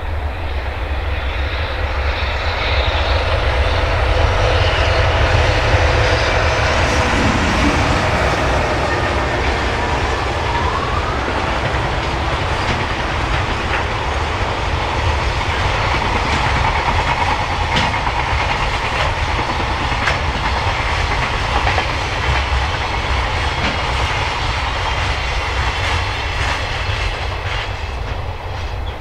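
EH500 electric locomotive passing at the head of a long freight train, followed by its container flatcars rolling by with a steady heavy rumble and wheels clattering on the rails.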